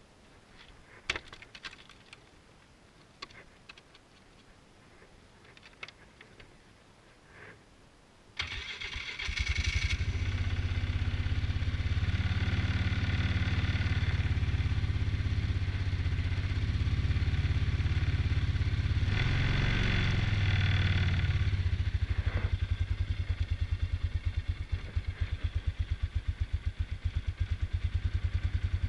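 A few light clicks, then about eight seconds in an ATV engine is started and catches, and keeps running with a deep, pulsing note that rises twice before settling to an even run.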